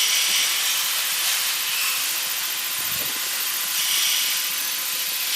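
Hydraulic travel-and-lift equipment on a drill-rig assembly line running as its cylinders lift a rig's base machine. It makes a steady high hiss over a faint constant hum, with one soft knock about three seconds in.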